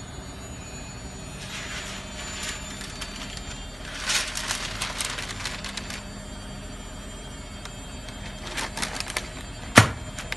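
Baking paper crinkling in several rustling bursts as it is laid over a stainless-steel pan, then a glass pot lid set down on the pan with one sharp clink near the end, the loudest sound.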